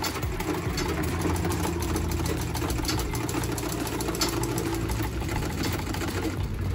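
Old black Singer sewing machine running steadily as it stitches a seam, a continuous low hum with rapid clicking from the needle mechanism.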